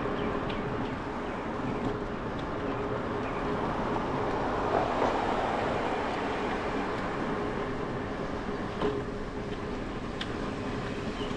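Wind rushing over an action camera's microphone and tyre noise from a bicycle riding along a paved street, with a car passing close alongside that swells in loudness around the middle.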